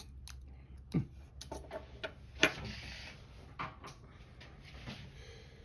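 Scattered small sharp clicks and taps of thin metal shims being trimmed and worked into a lock, about seven in all, the loudest about two and a half seconds in.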